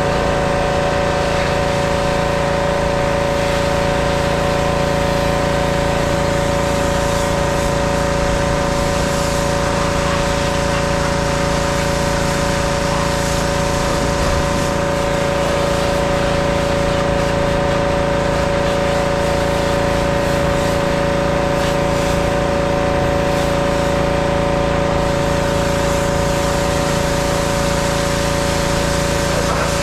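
Pressure washer's motor and pump running steadily at an even pitch, with the hiss of the water spraying from the wand.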